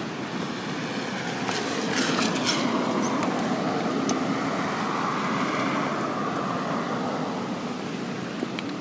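Engine noise from a passing motor, a steady drone that swells from about a second in and slowly fades toward the end.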